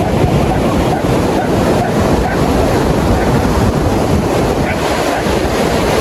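Surf breaking on a sandy beach, a steady wash of whitewater, with wind buffeting the microphone.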